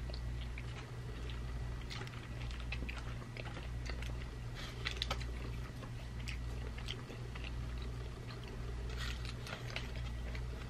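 People chewing and biting dry beef jerky, with scattered small crunches and mouth clicks. A steady low hum runs underneath.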